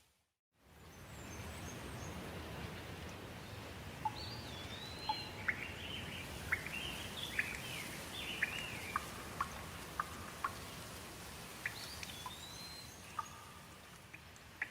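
Steady rain with birds calling over it: a run of short chirps and whistled notes starting about four seconds in and fading near the end. The sound drops out for a moment at the very start.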